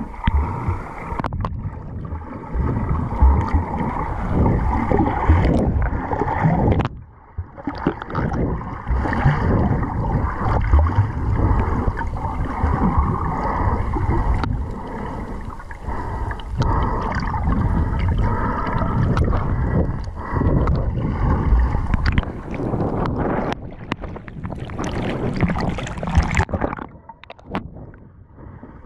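Muffled underwater water noise picked up by a camera moving through the sea: gurgling and sloshing that swells in surges every few seconds, with scattered sharp clicks and brief lulls about seven seconds in and near the end.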